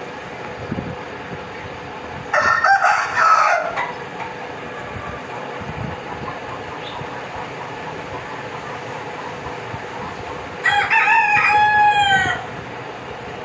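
A rooster crows twice, each crow lasting about a second and a half: the first comes a couple of seconds in, the second near the end, trailing off downward in pitch. A steady hiss runs underneath.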